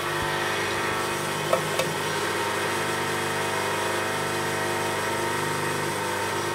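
Electric potter's wheel motor humming steadily while it spins, with two short clicks about a second and a half in.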